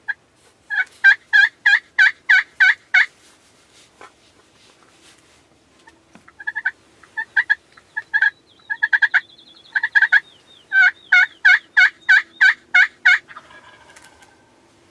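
Turkey yelping: three runs of evenly spaced yelps, about four notes a second.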